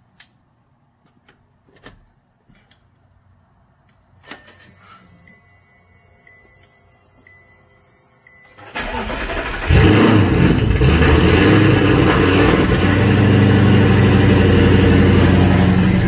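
2009 Audi R8 startup: a few light clicks, then a faint repeating chime, and about nine seconds in the engine cranks, fires and settles into a very loud, steady idle.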